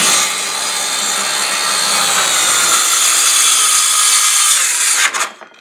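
Handheld circular saw cutting through a wooden sheet in one long, steady pass, stopping about five seconds in.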